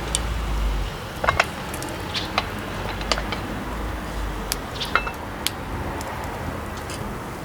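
Scattered light clicks and metallic clinks, a dozen or so at uneven intervals, a few ringing briefly, over a low steady rumble.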